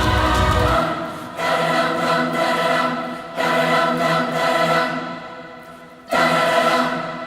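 Choral music: a choir holds sustained chords, with a deep bass that drops out within the first second. Fresh loud chords come in at about a second and a half, about three and a half seconds and about six seconds, each fading away.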